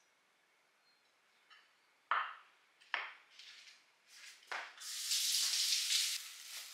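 Kitchen utensils knocking against dishes three times, a second or so apart, then about a second and a half of hissing noise.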